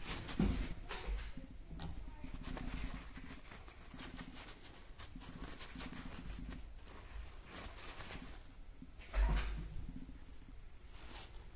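Small parts of a bearing carriage being handled on a workbench: scattered light clicks and knocks, with two louder bumps, one just after the start and one about nine seconds in.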